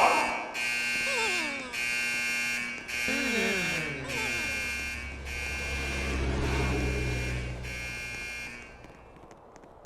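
Fire alarm sounding in long, high beeps of about a second each with short gaps, stopping near the end. A few falling cries sound beneath it.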